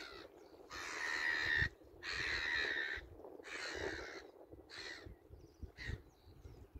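A crow calling: a series of harsh, drawn-out caws, the first ones about a second long and each one shorter than the last.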